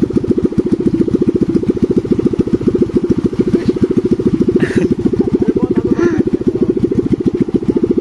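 A motorcycle engine running steadily in a rapid, even putter.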